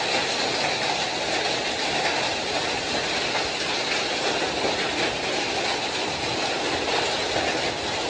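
Heavy rain pouring steadily onto a paved street, a dense, unbroken rushing noise.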